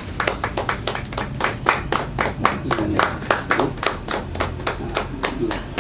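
A small group clapping by hand: quick, even, separately audible claps, about five or six a second, applauding the presentation of an honour certificate.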